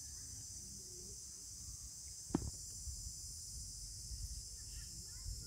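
Steady high-pitched insect chorus, with one sharp click a little over two seconds in.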